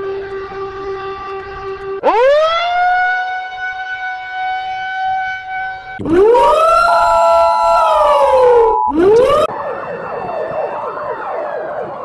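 Emergency alert alarm sounds played at four times speed, one after another. First a steady buzzing tone, then about two seconds in a siren tone that sweeps up and holds. About six seconds in comes one that sweeps up, holds and falls with a second tone over it, and near the end a dense jumble of warbling, gliding tones.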